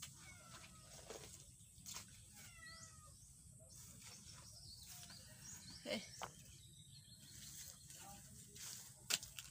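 A few faint, short wavering animal calls, followed by a couple of sharp knocks from a long-handled digging tool striking wet soil, the loudest about nine seconds in.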